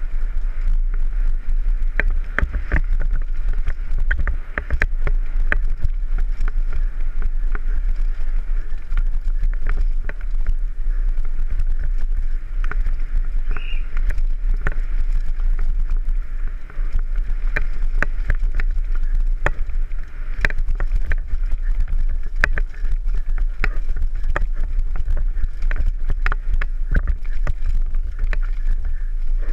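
Downhill mountain bike riding fast over rocky dirt trail, heard from a helmet camera: constant rattling and many sharp clicks from the bike jolting over the rough ground, over a steady low rumble.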